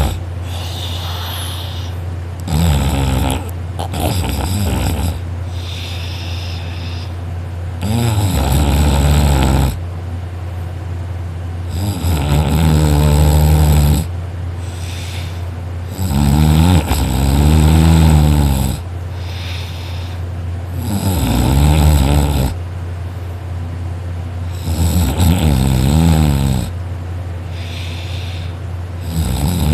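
A person snoring hard and crazy loud in deep sleep: a loud snore comes roughly every four seconds, about eight times, over a steady low hum.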